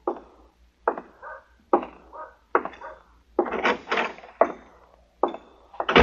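Radio-drama sound effect of boot footsteps on a wooden floor, about one step a second, with a light metallic jingle after some steps as of spurs. A heavier thump comes at the very end.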